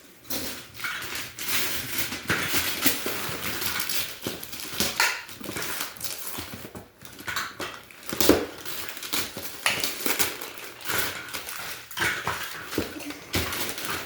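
Wrapping paper being torn and crumpled: a string of irregular rips and crackling rustles.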